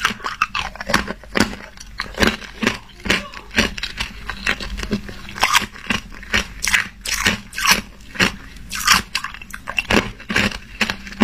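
White ice cubes being crunched and chewed between the teeth: a run of sharp, irregular crunches, a few each second.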